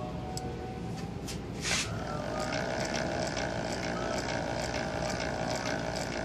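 Milling machine running as an end mill cuts a helical groove in a workpiece turned by a hand-cranked dividing head. From about two seconds in the cut gets louder, with a rapid, even ticking.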